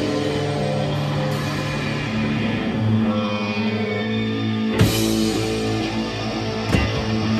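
Rock band playing live: electric guitar and bass hold long sustained notes that change about two seconds in, over drums. There is a heavy drum-and-cymbal hit about five seconds in and another near the end.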